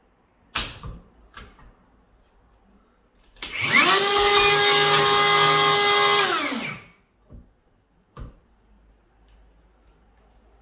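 Hikoki cordless router spinning up with a rising whine, running steadily for about two and a half seconds, then winding down. A couple of sharp knocks come before it and a few lighter knocks after.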